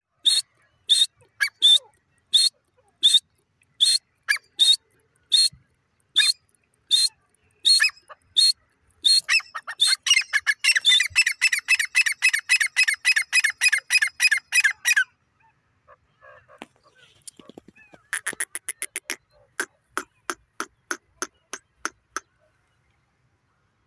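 Female grey francolin calling: single sharp calls repeated about once or twice a second, then from about nine seconds in a fast run of calls lasting some six seconds, and after a short pause another quick series.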